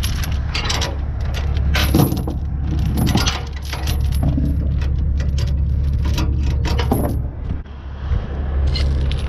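Steel transport chain rattling and clinking as it is handled and hooked, with many short metallic clanks of link on link.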